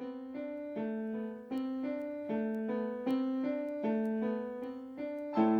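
Keyboard in a piano sound playing a simple melody of single struck notes, about two or three a second, each fading before the next. Near the end a fuller, louder chord comes in with low bass notes underneath.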